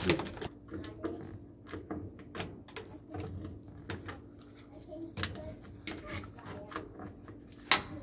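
Irregular light clicks and crinkles of hands working a plastic bag and needle-nose pliers against the sheet-metal burner and igniter bracket of a gas furnace, with a sharper click near the end. A faint steady hum sits underneath.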